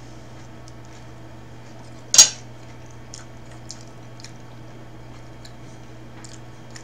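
A metal fork set down on a ceramic dinner plate with one sharp clink about two seconds in, followed by a few faint small clicks.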